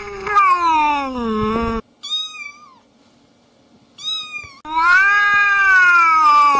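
A cat yowling in long, drawn-out wails like a crying baby. A long yowl falls in pitch over the first two seconds, two short, higher cries come in the middle, and a second long, loud yowl starts near five seconds.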